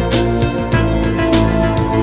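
Background music: instrumental with plucked guitar-like notes over a steady beat.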